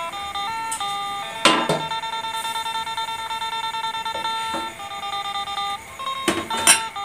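Background music: a light melody of held, chiming notes that step from pitch to pitch. A few short knocks cut through it, loudest about a second and a half in and again near the end.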